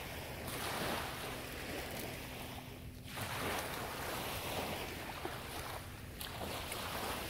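Small waves washing up on a sandy shore, the surf noise swelling and fading every few seconds, with wind rumbling on the microphone.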